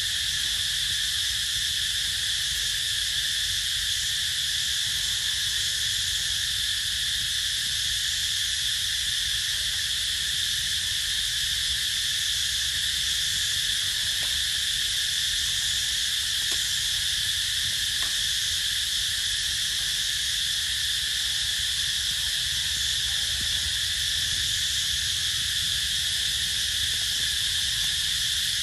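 Steady chorus of insects: a constant high-pitched buzzing drone, with a few faint ticks around the middle.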